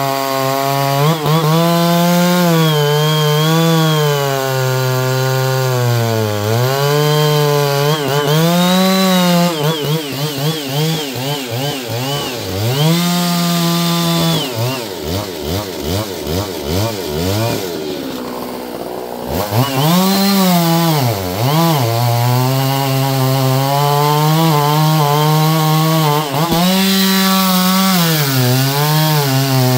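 Two-stroke chainsaw cutting wood, its engine pitch sagging and recovering again and again as the chain loads up in the cut. A little past halfway it drops briefly to a lower speed, then revs back up and carries on cutting.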